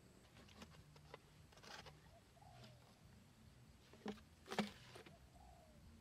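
Faint handling noise as sticks of a bird trap are worked into dry soil by hand: soft scrapes and small taps, with two sharper knocks about four seconds in.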